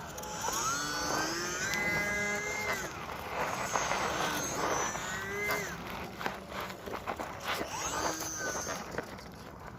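E-flite UMX Timber ultra-micro RC plane's electric motor and propeller whining in flight, the pitch rising and falling with throttle in three long sweeps.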